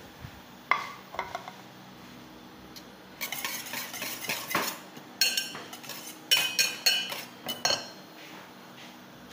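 A single sharp clink about a second in, then a wire balloon whisk stirring foamy whipped egg whites in a stainless steel bowl. The whisk scrapes for a couple of seconds, then strikes the bowl in several ringing metallic clinks.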